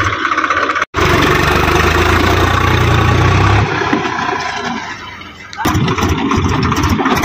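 Swaraj tractor's three-cylinder diesel engine running hard under load as the tractor drags its rotavator over a field bund; the drone sags for a second or so about four seconds in, then comes back up.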